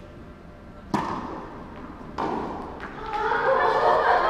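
Tennis racket striking the ball on a serve about a second in, a sharp crack that echoes around a large indoor hall, followed about a second later by a second sharp ball impact.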